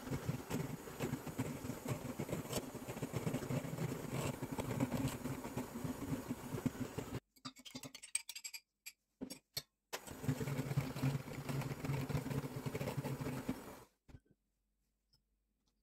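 Electric hand mixer running, its wire beaters whirring in a stainless steel bowl of batter. It stops abruptly about seven seconds in, followed by a few light clinks of a spoon against a glass jar and the bowl. The mixer then runs again for about four seconds and stops.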